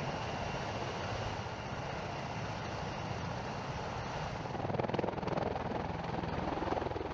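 V-22 Osprey tiltrotor running, a steady rumble of its proprotors and turbine engines with a fast low beat, growing a little louder about halfway through.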